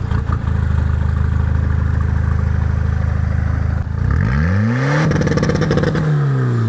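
Tuned 2001 Peugeot 206 2.0 HDi four-cylinder turbodiesel, its exhaust silencer removed, idling steadily just after starting. About four seconds in it is revved once: the pitch climbs for about a second, holds briefly, then falls back toward idle near the end.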